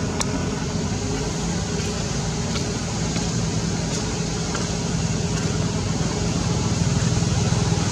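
A steady low mechanical drone from a running motor, with a constant hum underneath.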